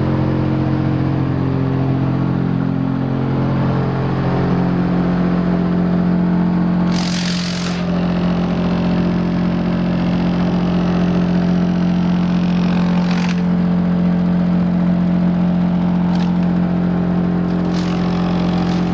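Large wood chipper running at speed, a loud steady hum with a whirring drone. There is a hissing burst of about a second some seven seconds in, and a few shorter ones later.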